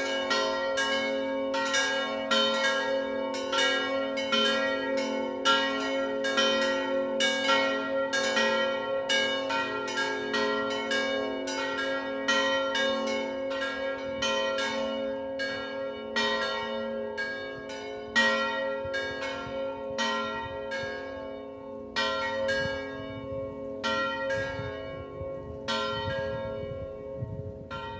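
Three 1934 Pasqualini bronze church bells, the second, third and fourth of the tower's four, swinging in a descending full peal (distesa). Their clappers strike several times a second over a steady ringing hum, and the strokes thin out in the last few seconds. The peal is the one call to the pre-festive evening Mass.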